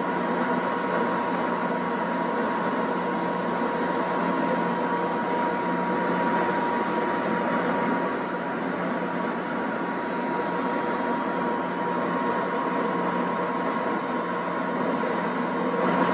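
Steady electrical hum with a thin, steady high tone above it, from a HIPOTRONICS 100HVT-DI AC hipot test set energized at high voltage as it ramps toward its 36 kV test voltage on a vacuum breaker.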